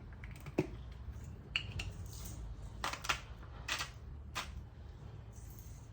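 A handful of light clicks and short taps of kitchen utensils as salt is added to the soup, over a low steady hum.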